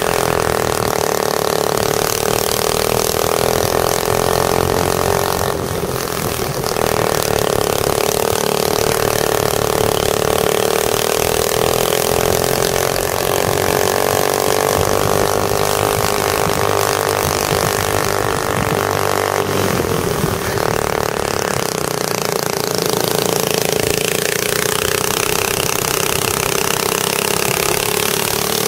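Go-kart engine heard onboard at racing speed, its pitch rising and falling as the throttle is worked, with two brief dips about six and twenty seconds in.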